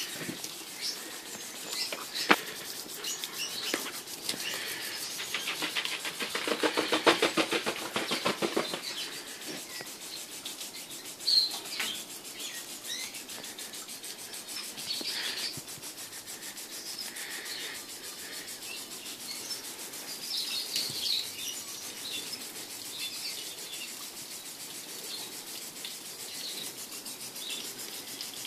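Garden sprinkler spraying water in a steady hiss with a fast, fine rattle, louder for a few seconds about five seconds in. Birds chirp now and then.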